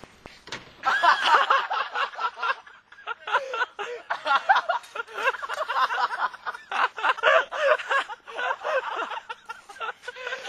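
Close-by people snickering and giggling in stifled, high-pitched fits, starting about a second in and going on in short broken pieces.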